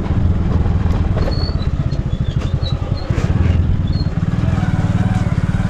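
Motorcycle engine running as the bike rides along, the note dipping a little about halfway through and then holding steady. A few faint, short high chirps come through during the first few seconds.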